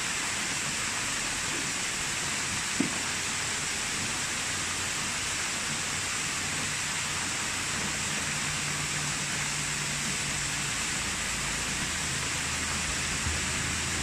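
Steady rushing noise of a waterfall pouring into a rock pool, with one brief knock about three seconds in.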